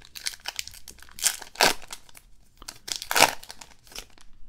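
A 2023 Topps Allen & Ginter trading card pack's foil wrapper torn open and crinkled by hand, a string of uneven crackling rips with the loudest ones about a second and a half and three seconds in.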